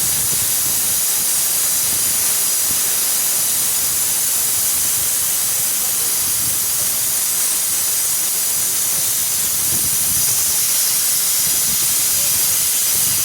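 A loud, steady hiss that stays even and unbroken.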